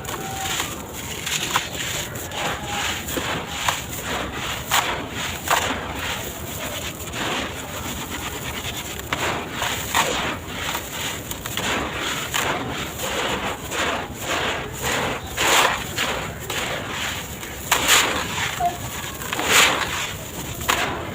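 Dry sand-cement blocks being crumbled in a tub: continuous gritty crunching and crackling with irregular louder crunches.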